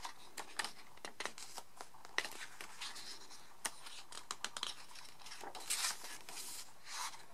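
Glossy pages of a CD album's photobook being turned by hand: soft paper rustling with many small ticks and clicks, and a louder page swish near the end.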